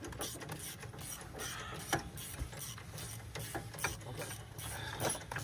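Hand ratchet wrench clicking in quick strokes, about three clicks a second, as bolts are done up during a wheel and brake reassembly. Two sharper knocks stand out, one about two seconds in and one near the end.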